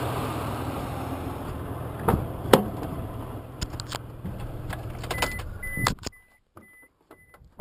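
A car engine idling steadily, with two sharp clicks about two seconds in, is switched off about six seconds in. A warning chime beeps about twice a second as it shuts down and runs on into the quiet.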